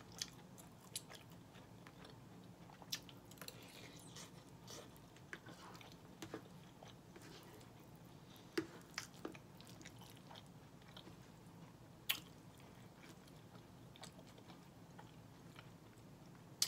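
Close-miked chewing of a mouthful of red beans and rice with smoked turkey and collard greens, with a few sharp clicks scattered through it, over a faint low hum.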